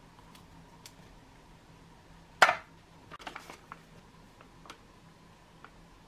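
Tableware handled while tea is made: one sharp clink about two and a half seconds in, followed by a few light taps and clicks.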